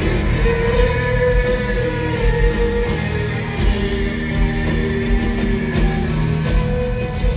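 Live rock band playing in an arena, recorded from the crowd: electric guitars and drums, with the singer's voice over them.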